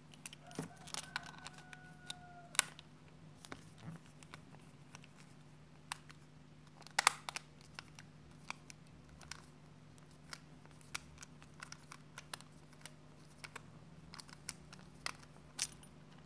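Small screwdriver working the screws of a Philips HQ7340 electric shaver's plastic housing: scattered light clicks and scrapes of metal on plastic, loudest about seven seconds in, with a brief faint squeak about a second in. A steady low hum underneath.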